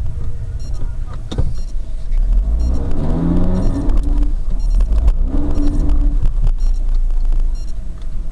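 Off-road vehicle engine running under a heavy low rumble, rising in pitch twice as it revs.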